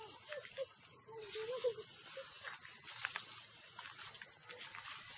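A steady high-pitched hiss, with faint distant voices in the first two seconds.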